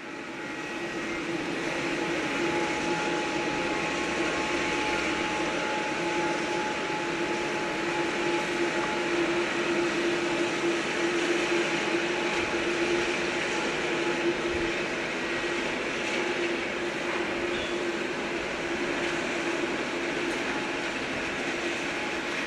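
Airliner jet engines running steadily, a continuous hiss with a held low whine.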